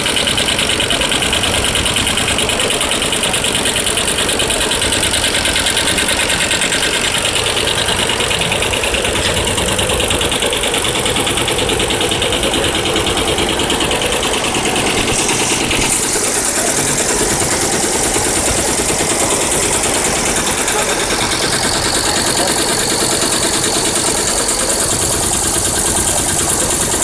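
Tai Sang multi-head computerized embroidery machine running at speed, with sequin attachments on its heads: a steady, rapid mechanical clatter of needles stitching.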